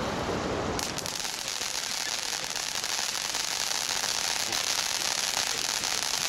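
Ground fountain firework spraying sparks: a steady hiss thick with rapid crackling, which grows fuller about a second in.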